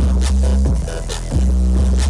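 Loud electronic dance music with a deep, sustained bass and a steady repeating beat, played through a huge 'sound horeg' loudspeaker rig.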